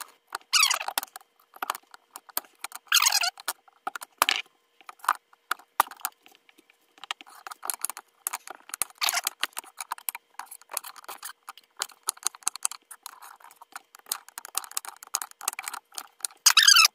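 Large kitchen knife cutting raw butternut squash into chunks on a cutting board: a long run of crisp cuts and knocks of the blade against the board, with a few longer scraping slices through the firm flesh.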